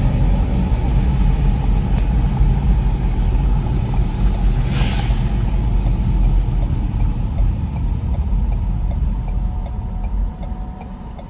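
A loud, steady low rumble with a whoosh about five seconds in. The rumble eases off near the end.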